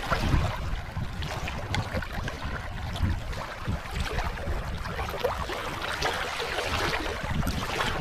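Small wind-driven waves lapping and splashing over a shallow stony lakeshore, with wind rumbling on the microphone.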